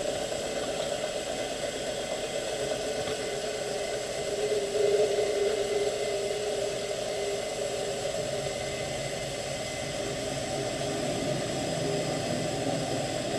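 Drilling machine running steadily as a long 1/8-inch drill bit is fed deep into the workpiece near the end of the quill's travel, with a louder cutting tone for a couple of seconds about five seconds in.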